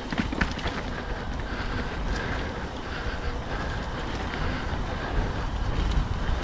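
Wind buffeting the microphone over the rolling rumble of a mountain bike descending a dirt trail, with scattered sharp clicks and rattles.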